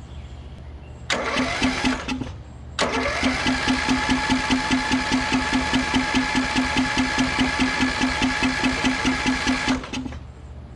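Riding mower engine cranked over by its electric starter: a short crank of about a second, then a longer crank of about seven seconds with an even chuffing of about six compression strokes a second over the starter's whine, stopping abruptly. The engine does not catch; the cranking is meant to make the fuel pump draw fuel.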